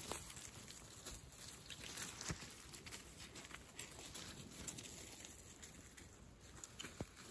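Faint, scattered rustling and crackling of dry fallen leaves and twigs under a small dog's paws and a person's shoes on a forest path, over a low background rumble.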